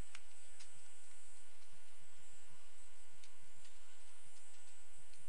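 Steady hum and hiss with a few faint, scattered ticks.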